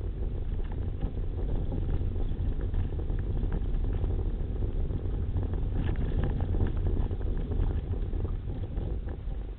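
Car driving slowly along a rough gravel track, heard from inside the cabin: a steady low rumble of tyres over the dirt with many small clicks and ticks of gravel and stones, thickest about six seconds in.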